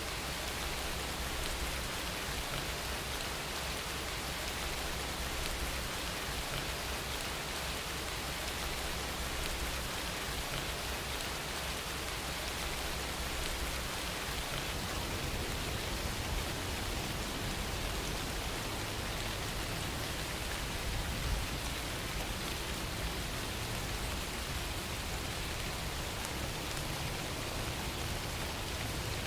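Steady rain falling, an even hiss that never breaks.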